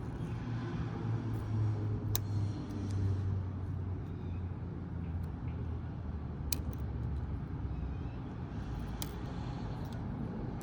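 Three sharp, isolated clicks of a Lishi pick tool working the pins of a Schlage door lock, over a low steady vehicle rumble.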